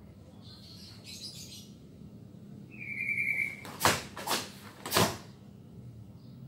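Three sharp snaps from fast karate kata techniques, the gi cracking with each strike, the last also carrying a low thud. Just before them a bird gives one short chirp.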